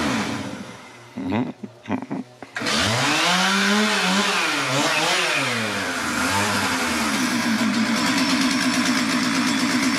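Two-stroke chainsaw revved up and down several times, with a few short blips before that. From about seven seconds in it is held at a steady full-throttle pitch as it saws into the cedar's trunk, making the felling cut behind the notch.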